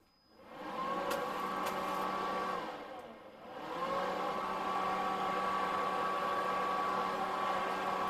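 Ryobi 40-volt cordless leaf vacuum and mulcher running: its electric motor and impeller spin up to a steady whine, wind down briefly about three seconds in, then spin back up and run steadily. A few sharp ticks sound over it.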